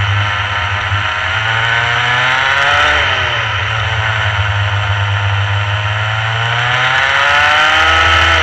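Rotax Mini kart's small two-stroke engine running hard through a lap. Its pitch drops sharply about three seconds in, sags off through the middle and climbs again near the end as the driver comes off and back onto the throttle through the corners.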